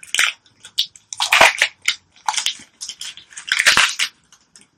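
Thin plastic wrapping crinkling as it is peeled off a small doll, in irregular crackly bursts with short pauses between them.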